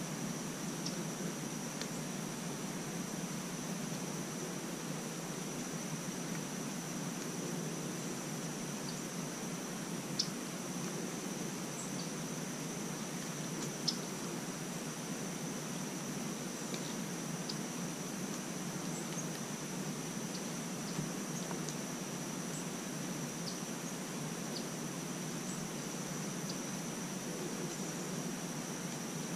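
Quiet outdoor ambience: a continuous high-pitched insect drone over a steady low hiss, with a couple of faint sharp ticks about ten and fourteen seconds in.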